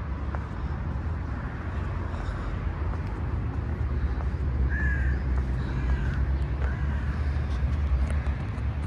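Three short, arched animal calls about a second apart, over a steady low outdoor rumble.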